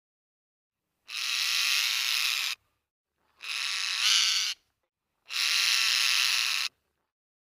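Parrot squawking: three harsh, buzzy calls, each a second or more long, with short silences between them.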